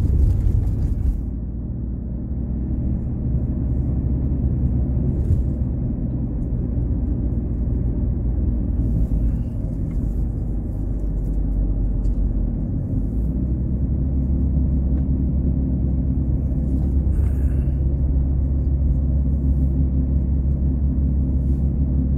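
Car engine and tyre rumble heard from inside the cabin while climbing a mountain road: a steady low hum that grows stronger about twelve seconds in.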